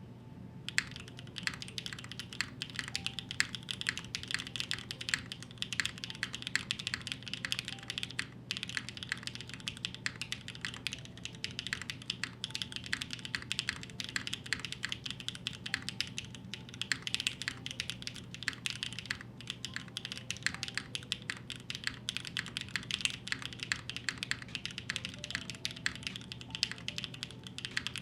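Continuous fast typing on a Neo75 Cu mechanical keyboard fitted with BCP-style linear switches: a dense, even stream of key presses and bottom-outs, over a low steady hum.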